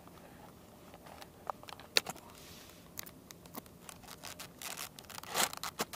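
Handling noise from assembling a foam model plane: scattered light clicks and knocks as the tail section is fitted to the fuselage, with a scuffing rustle near the end.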